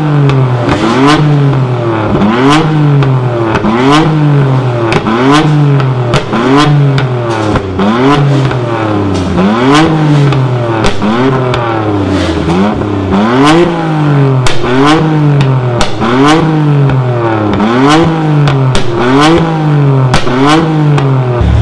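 Modified car engine revved in rapid, regular throttle blips, a little over once a second, each one rising quickly in pitch and falling back. Sharp exhaust pops and crackles come with every blip.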